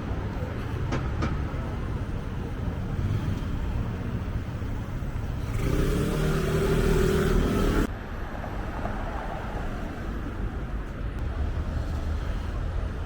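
Urban traffic noise: a steady low rumble of passing road vehicles. About five seconds in, a louder hiss with a steady tone builds for a couple of seconds and cuts off suddenly.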